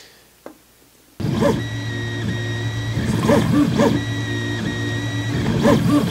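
FDM 3D printer running a print: the stepper motors whine in several steady tones with recurring chirps as the print head moves, starting suddenly about a second in.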